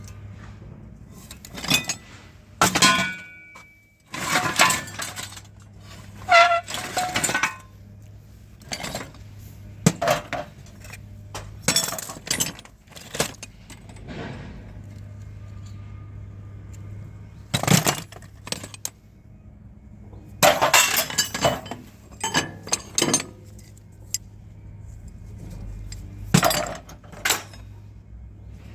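Scrap metal clanking and clattering: repeated irregular hard strikes with ringing, as pieces are moved or dropped, over a steady low hum.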